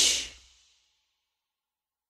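A music track breaks off right at the start, its last sound dying away within about half a second, followed by dead silence.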